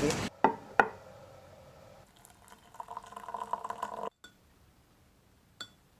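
Two sharp clicks, then water poured from a kettle into a ceramic mug: a trickling, splashing fill that builds from about two seconds in and cuts off abruptly about four seconds in.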